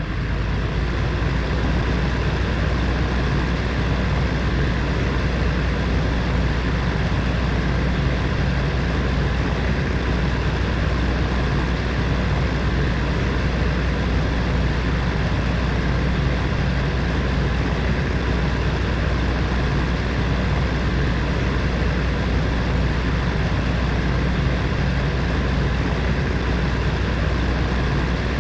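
Heater fan running steadily: an even rushing noise with a deep hum underneath.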